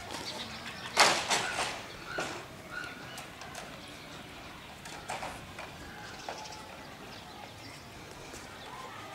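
A few sharp knocks, the loudest about a second in, with scattered lighter clicks and a few short high chirps.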